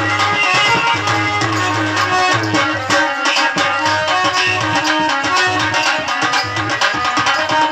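Live Indian folk music, instrumental: a harmonium holding sustained notes over a steady hand-drum beat.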